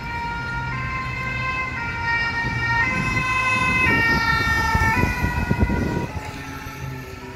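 Fire brigade rescue ambulance (VSAV) passing with its French two-tone siren, alternating between two notes about once a second, over engine and road noise. It grows louder as it approaches and is loudest around four to six seconds in. Its notes then drop in pitch and fade as it moves away.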